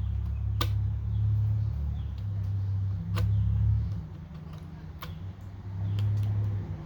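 Utility knife blade cutting into wood, making a few sharp single clicks as chips snap off. The loudest sound is a low rumble that swells and fades, strongest in the first half and again near the end.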